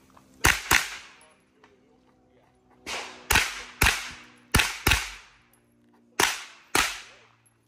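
Pistol shots fired in four pairs, the two shots of each pair in quick succession and a pause of a second or more between pairs, each with an echo trailing after it; a fainter pop comes just before the second pair. This is a timed USPSA course of fire, two shots per target.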